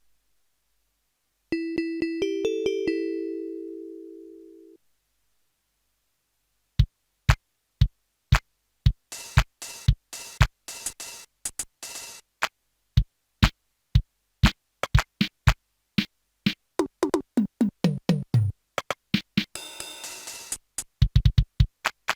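Yamaha PSS-570 portable keyboard: a few short bright synth notes and a held tone, then after a pause its built-in drum sounds, single hits about two a second that build into a busier drum-machine pattern. Near the end comes a falling electronic drum sweep, then a cymbal-like hiss and low bass-drum hits.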